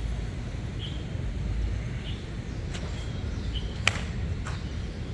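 Steady low outdoor rumble with a few short high chirps, and a single sharp crack about four seconds in.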